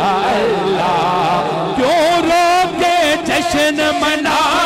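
A singer reciting a naat, a sung devotional poem, in long drawn-out notes that waver and bend. A low steady hum underneath drops away about two seconds in, as a higher held line begins.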